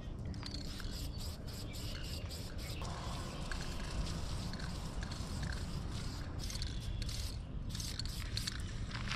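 Aerosol spray-paint can hissing as a coat of paint is sprayed on, in a string of passes that stop and start.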